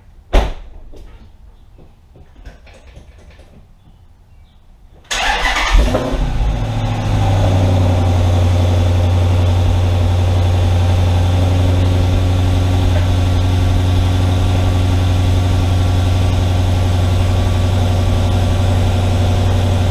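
Dodge Challenger SRT8 392's 6.4-litre V8 cold start: a sharp click about half a second in, then about five seconds in the starter cranks loudly and the engine catches, settling within a couple of seconds into a steady, loud idle with a deep hum.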